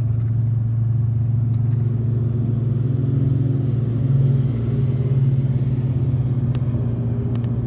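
Steady low road and engine rumble of highway driving, heard inside a pickup truck's cab, swelling briefly about four seconds in as it runs close alongside a military cargo truck.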